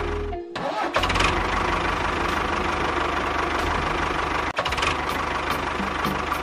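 A small engine running with a fast, even beat. It cuts out briefly about half a second in, starts again about a second in, and breaks off for an instant once more later.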